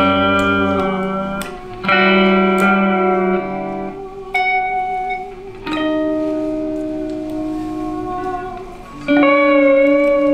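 Electric guitar through a small amp playing slow, sustained chords: a new chord is struck four times, each left to ring out and fade, one wavering slightly as it dies.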